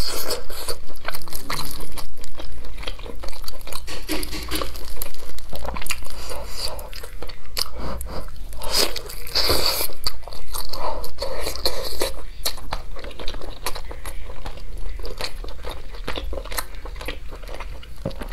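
A person biting into and chewing a soy-glazed teriyaki chicken leg, with many quick, irregular wet clicks of mouth and meat.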